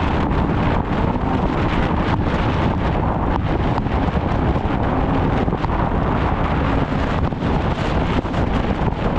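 Snowmobile running steadily, its engine sound mixed with heavy wind noise on the microphone.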